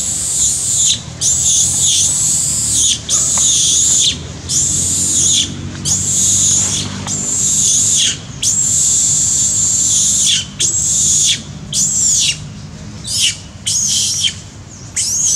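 Young macaque screaming in distress: a long run of loud, shrill screams, about one a second with short breaks, each rising and then falling in pitch. These are its cries of hurt after being hit and bitten by another monkey.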